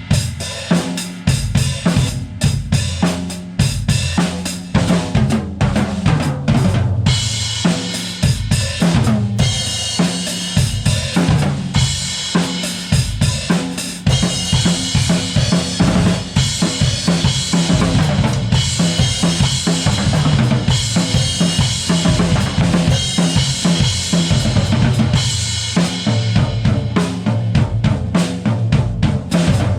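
Drum kit played continuously: bass drum, snare and toms under a steady wash of cymbals and hi-hat, on a Tama Superstar Hyperdrive Maple kit with a Tama Starphonic Metal snare and Meinl Classics Custom cymbals. The cymbal wash thins out near the end, leaving mostly drums and hi-hat.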